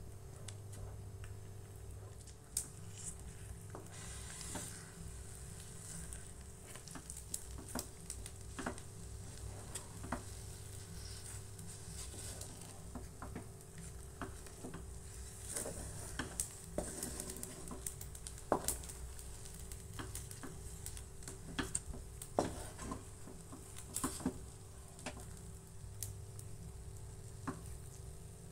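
Spatula stirring and scraping a thickening, sticky flour paste in a metal pan on the stove, with irregular scrapes and clicks over a steady low hum.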